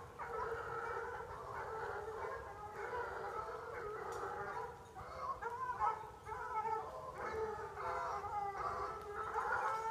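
Honeybee colony humming in the hive: a steady drone with wavering higher tones over it.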